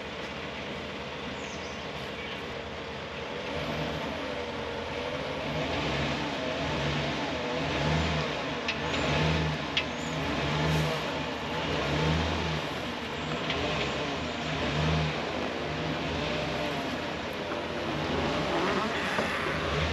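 An SUV towing an unrestored 1928 Chevrolet truck on a chain at a crawl: the SUV's engine running low and steady. From about four seconds in, a rhythmic rumble and creak repeats roughly once a second as the old truck's wheels roll, with a few sharp clicks partway through.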